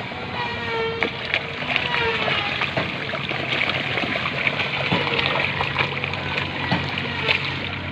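A dense crowd of catfish splashing and churning the water at a pond's surface in a feeding frenzy, with many small splashes and slaps throughout.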